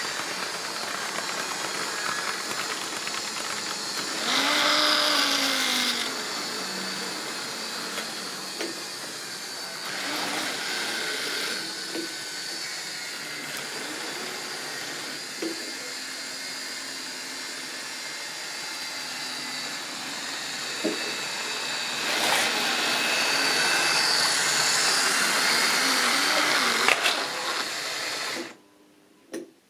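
Model railway train running on the layout: the locomotive's small electric motor whirs and the wheels run over the track, with a few sharp clicks. It gets louder twice as the train passes close, then cuts off suddenly near the end.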